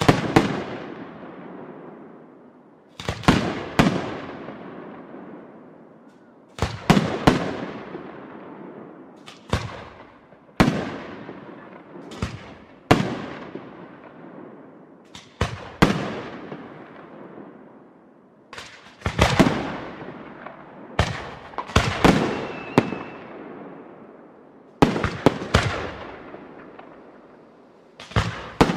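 Aerial firework shells bursting: sharp bangs, singly or in quick clusters of two or three, every few seconds, each followed by a long rolling tail that fades away.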